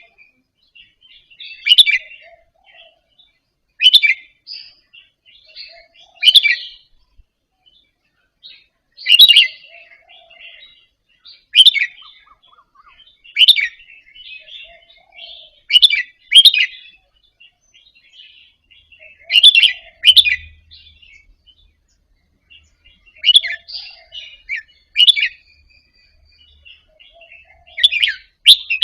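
Red-whiskered bulbul singing, short bright phrases repeated about every two seconds with soft twittering in between.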